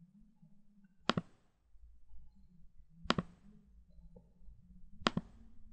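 Computer mouse button clicking three times, about two seconds apart, over a faint low hum.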